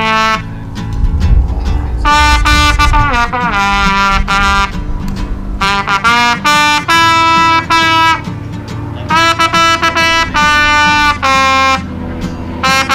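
Music: a horn plays a melody in short phrases of held notes, with a falling slide about three seconds in, over a steady low backing.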